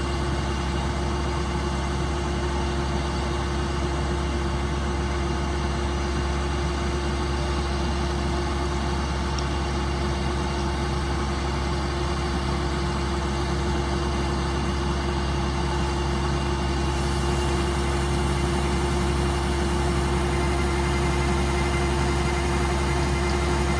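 Rice combine harvester's diesel engine running steadily, a constant drone with no change in speed.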